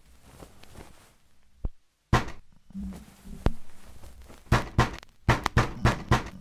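Fist pounding on a door: one heavy bang about two seconds in, then a quick run of bangs in clusters over the last two seconds.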